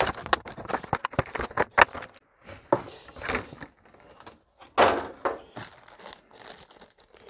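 Clear plastic packaging crinkling and rustling in hands as an anime figure is unwrapped, with irregular sharp crackles and louder rustles about two and five seconds in.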